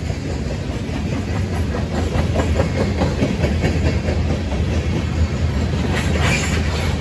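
CSX freight train of covered hopper cars rolling past close by: a steady low rumble of steel wheels on rail with repeated clicks as the wheels run over the rail joints. A brief sharper, higher noise comes about six seconds in.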